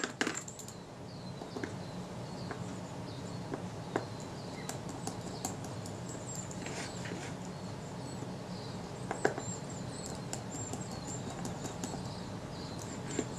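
Small metallic clicks and ticks of a jeweller's screwdriver and tweezers on the metal lens body as tiny screws are set into the back of a Kodak Retina-Xenar lens, with a sharp clack right at the start and a louder click about nine seconds in.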